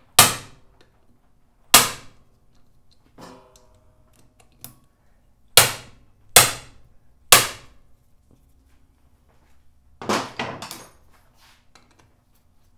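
Hammer striking a manual impact driver to break loose the JIS screws on a Honda CB550's cylinder head cover: five sharp metal blows spaced a second or more apart, then a quick flurry of strikes near the end.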